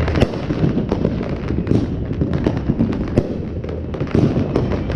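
Fireworks going off up close in rapid succession: a dense, unbroken run of sharp pops and bangs, several a second, over a continuous low rumble.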